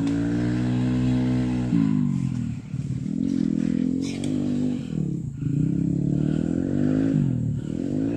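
Trail motorcycle engine running, its revs rising and falling again and again every second or two.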